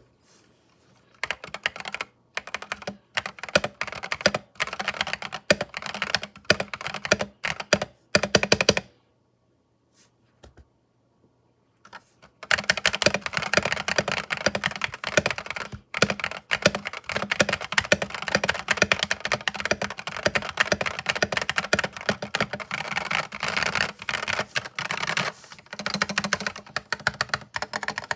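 Mechanical keyboard with Philikey Ice switches being typed on: separate keystrokes and short runs for the first several seconds, a pause with only a few stray clicks, then continuous fast typing from about twelve seconds in.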